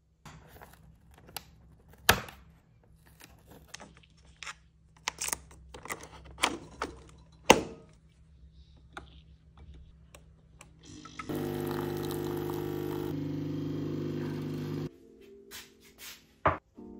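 Clicks and knocks as a De'Longhi Nespresso capsule machine is loaded and a glass set under its spout. Then the machine's pump buzzes steadily for about three and a half seconds as it brews, and cuts off abruptly. A sharp knock comes near the end.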